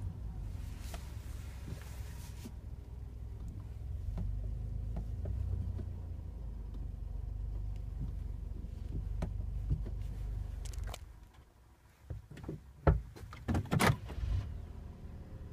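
Daihatsu Wake running with a steady low hum that cuts out about eleven seconds in, followed by a few sharp knocks and a brief clatter near the end.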